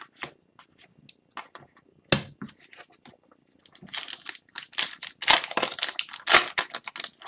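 Foil trading-card pack wrapper being torn open and crinkled in the hands, a dense crackling through the second half. Before it come light clicks and taps of cards being handled, with one sharper tap about two seconds in.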